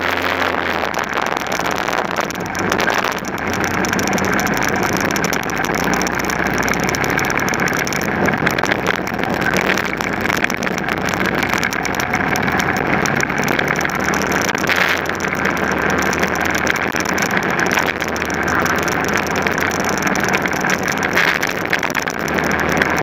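Racing kart engine running under load at speed, mixed with wind and tyre noise, picked up by a camera mounted low on the kart.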